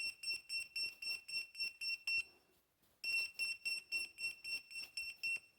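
An electronic beeper sounding rapid high-pitched beeps, about four a second. It stops about two seconds in, starts again a second later and stops just before the end.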